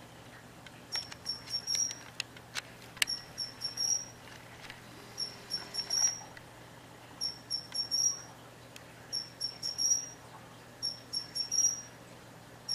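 Japanese pine cricket (matsumushi) singing its repeated "chin-chirorin" phrase, a few quick high chirps ending in a longer note, about every two seconds. A few faint clicks are heard in between.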